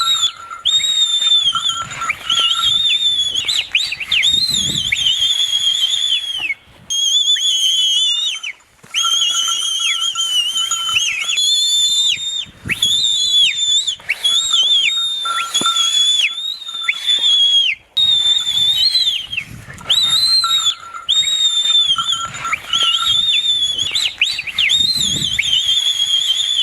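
Loud, shrill whistling, in long held high notes that waver and dip at their ends, repeated again and again with short breaks. It is the whistle used to rouse a Jallikattu bull into its dance.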